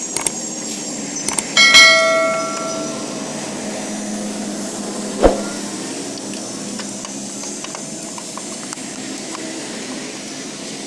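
A metal part or tool struck against metal, giving one loud clank that rings like a bell and fades over about a second and a half. A few light clicks come before it and a duller knock follows about five seconds in, over steady background noise.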